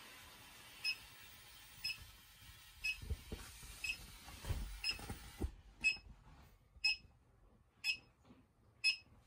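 Short high-pitched electronic beeps, about one a second and evenly spaced, from a handheld AZ 7755 CO2 meter, with a few faint dull handling bumps in the middle.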